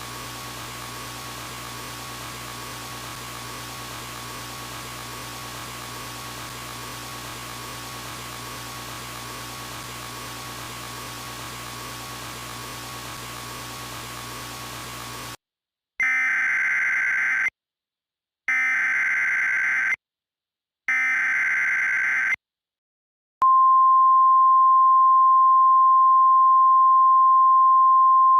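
A steady hum and hiss, then, about fifteen seconds in, three short harsh electronic data bursts with brief silences between them: the SAME header of an Emergency Alert System broadcast. After a pause comes a loud, steady single-pitch attention tone that is still sounding at the end.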